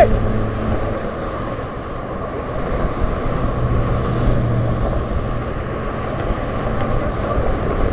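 Steady rush of road traffic driving past close by on the bridge roadway, with a passing vehicle's low engine hum swelling and fading around the middle.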